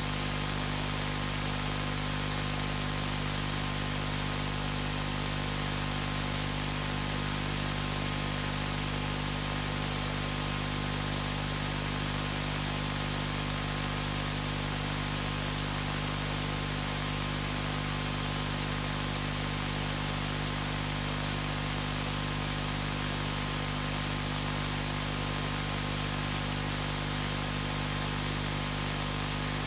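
Steady static-like hiss of recording noise with a low steady hum underneath, and a few faint clicks about four seconds in.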